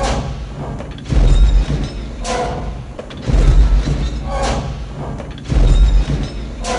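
Star Wars AT-AT walker footsteps sound effect. Three heavy booming footfalls land about two seconds apart, each one between short hissing, whining mechanical sounds of the legs' joints.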